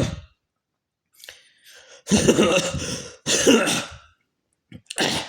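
A man coughing and clearing his throat. Faint throat noises come first, then two loud, rough coughs about two seconds in, each about a second long, and a short throat-clear near the end. It is a phlegmy cough from an itchy throat.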